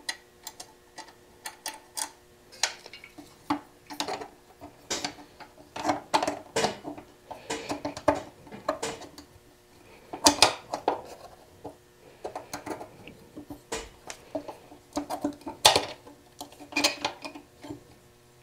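Small metal parts and hardware clicking and clinking irregularly as they are handled and fitted by hand on a motorcycle frame, with a few louder clinks about ten and sixteen seconds in. A faint steady hum runs underneath.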